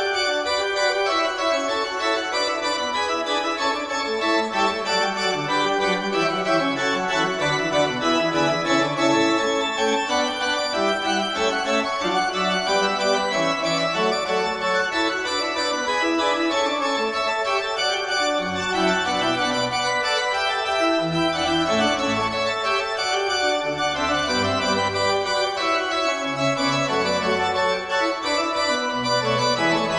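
Pipe organ playing polyphonic Baroque music, several lines moving at once in sustained notes, with a deep pedal bass line coming in about eighteen seconds in.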